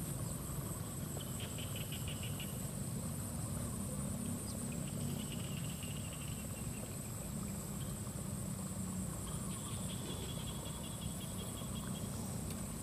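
Chorus of insects and frogs at a reedy pond: a steady high-pitched buzz, with short pulsed trills recurring every few seconds, over a low steady rumble.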